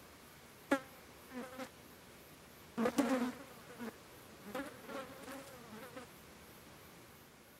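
A flying insect buzzing close by in several short passes, its hum wavering in pitch as it comes and goes, with the loudest pass about three seconds in. A single sharp tick comes just under a second in.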